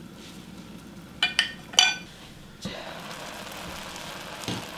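A glass saucepan lid clinking against the pan's rim a few times, with a brief ring, about a second in. Then a steady hiss of black beans simmering in soy sauce and sugar as the liquid reduces, with a soft knock near the end.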